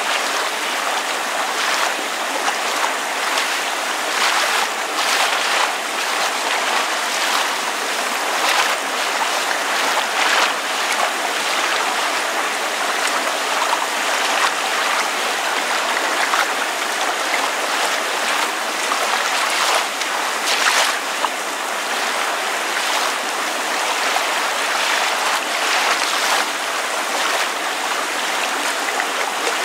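Water lapping and splashing with rain falling: a steady wash of noise broken by frequent small splashes.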